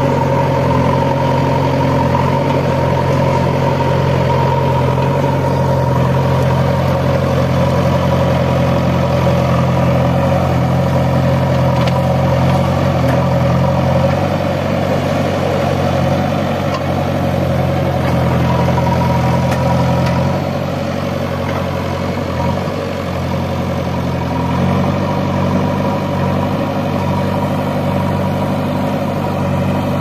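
JCB 3DX backhoe loader's four-cylinder diesel engine running steadily as the machine repositions and digs, easing off about two-thirds of the way through and picking up again near the end.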